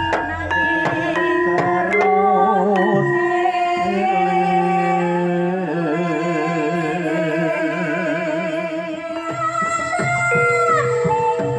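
Javanese gamelan gending: struck bronze gamelan instruments with a female sinden singing long held notes that waver in a slow vibrato, ending in downward slides near the end.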